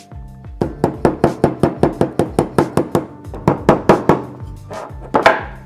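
A rubber-faced mallet tapping quickly and evenly, about five or six light knocks a second, around the sheet-metal rim of a Hella tail-light housing, folding the edge over to hold the new lens in, with one louder knock near the end. Background music plays underneath.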